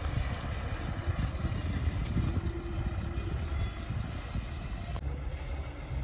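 Diesel engine of a loaded dump truck running as the truck moves slowly: a steady low rumble.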